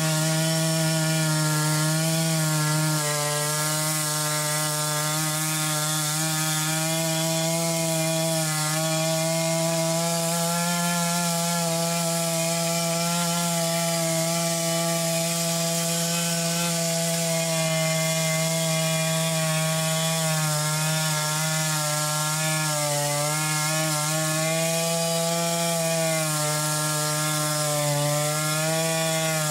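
Chainsaw in an Alaskan chainsaw mill running at steady high revs, ripping lengthwise through a cedar log. The engine note holds steady, dipping slightly in pitch now and then as the bar takes the load of the cut.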